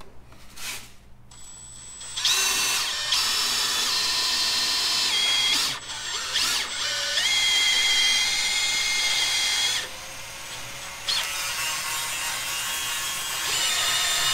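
Hand-held power drill boring a hole in a steel bracket, to be tapped for threads afterwards. The drill starts about two seconds in with a steady whining motor and cutting bit. It stops briefly near six seconds, eases off for about a second around ten seconds, then runs at full speed again.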